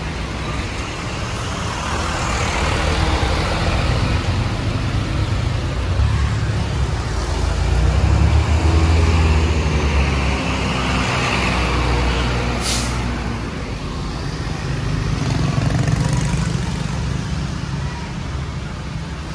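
Bus engine running, a steady low drone that grows louder for a few seconds near the middle, with one short, sharp hiss of air from the air brakes about two-thirds of the way through.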